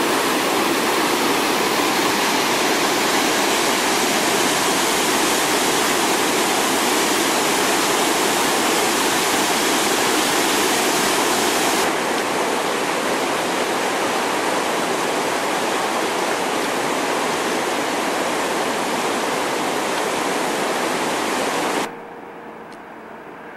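River rapids: whitewater rushing over rocks, a loud, steady, even rush. Near the end it cuts off suddenly to a much quieter background with a faint steady hum.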